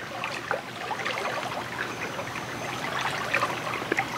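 Shallow creek water trickling and babbling over rocks: a steady wash of running water with many small splashing ticks.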